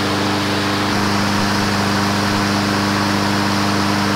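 New Honda HRN216 lawn mower's Honda GCV170 single-cylinder four-stroke engine running steadily at constant speed on its first break-in run, running super smooth.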